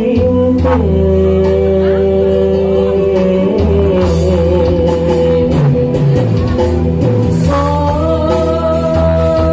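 A man singing a Sundanese song into a handheld microphone through a PA system, over an amplified backing track with a steady bass line and light percussion. He holds long notes.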